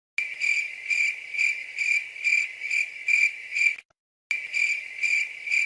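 Crickets-chirping sound effect: a steady high chirp pulsing about twice a second, broken by a brief gap of dead silence near four seconds in.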